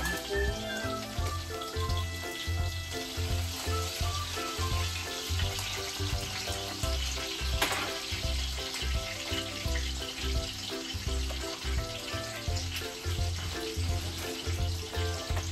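Ribeye steak sizzling steadily as it fries in a pan over medium heat.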